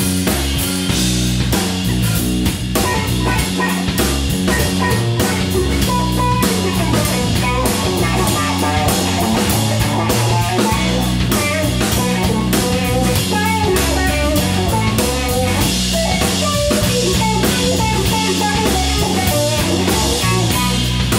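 Live rock band jam: a guitar plays a moving lead line over a drum kit keeping a steady beat and a low bass line.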